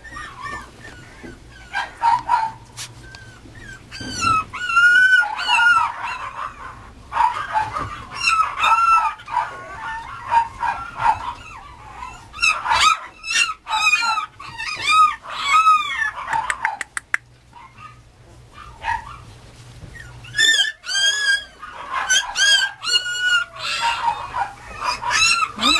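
Mame Shiba puppy giving many short, high-pitched yips and whines in clusters, with a short lull about two-thirds of the way through.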